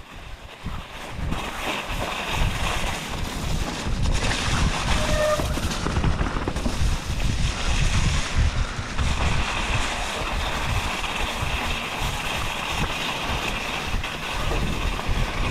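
Mountain bike being ridden over snow and mud: a steady, uneven rumble of tyres on the slippery ground mixed with wind buffeting the microphone.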